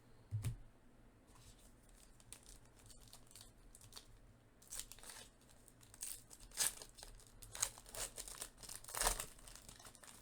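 A baseball card pack wrapper being torn open and crinkled in several short rustling bursts, after a single sharp click about half a second in.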